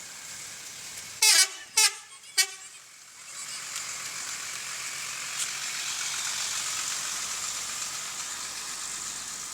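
Multi-tone 'telolet' horn of an Arimbi bus sounding three short blasts about a second in, the first the longest. Then a steady rushing road noise sets in.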